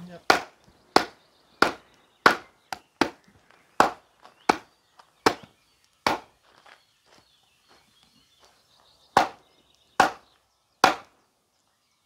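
Wooden baton striking the spine of a Cold Steel SR1 Lite folding knife to drive its blade into very hard wood. The blows are sharp and knocking, about a dozen in quick succession over the first six seconds, then three more after a pause of about three seconds.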